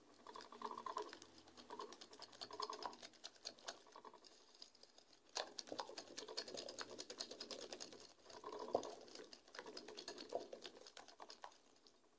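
Wire whisk beating eggs and sugar in a glass bowl by hand: rapid, uneven clicking of the metal tines against the glass.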